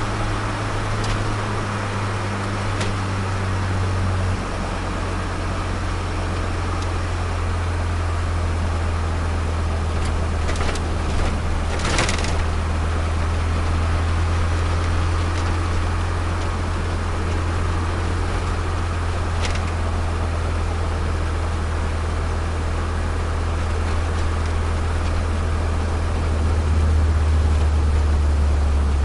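Turbocharged Nissan Micra's engine droning steadily, heard from inside the cabin while driving, its note stepping lower about four seconds in and again near the end as the revs ease from about 3,000 to 2,200 rpm. A short rattle comes about twelve seconds in.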